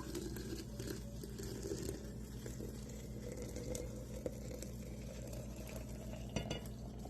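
Hot water being poured slowly through a small kitchen funnel into a container of flowers, a quiet continuous trickle over a steady low hum.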